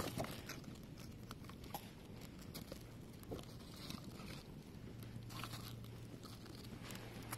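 Burning cardboard and paper fireworks packaging crackling faintly, with irregular small snaps and pops.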